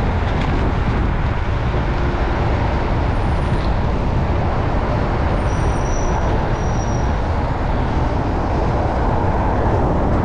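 Wind rushing over the microphone of a moving bicycle, mixed with city traffic noise, as a steady loud rumble. A faint high squeal sounds twice just past the middle.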